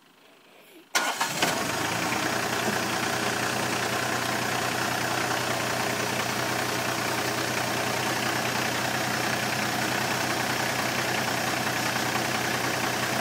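Massey Ferguson GC2410 compact tractor's diesel engine running steadily, coming in suddenly about a second in.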